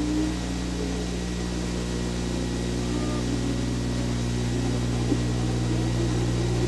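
Steady low hum and hiss of an old television recording, with faint Formula One car engines from the circuit underneath.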